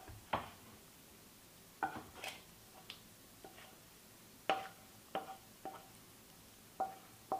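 Spatula knocking and scraping against a pan rim and a steel plate while sticky jaggery-peanut mixture is scraped out: about ten separate knocks, several leaving a short ringing tone.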